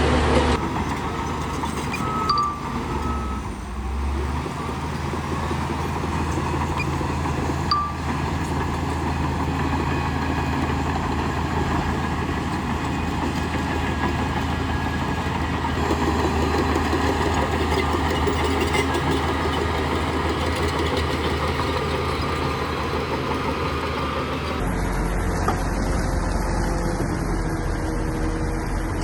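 Heavy diesel earthmoving machinery running steadily under load, with a few short beeps about two to three seconds in, like a reversing alarm. The engine sound changes abruptly near the end.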